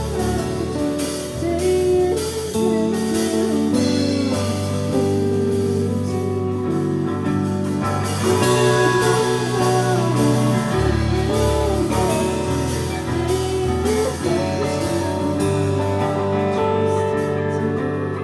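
Live band playing a song: guitar over bass and a drum kit, with a sliding melodic line on top, steady and loud.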